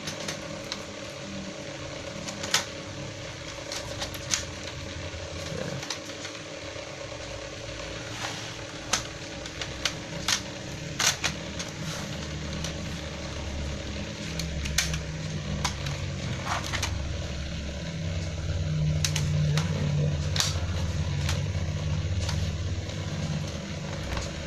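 Plastic clicks and snaps as a laptop's bottom casing is pressed and clipped back onto the chassis, coming irregularly one at a time. A low rumble rises in the background in the second half.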